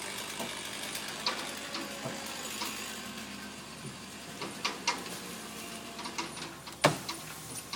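Scattered clicks and knocks over a steady background hiss, with one sharp knock, the loudest, near the end.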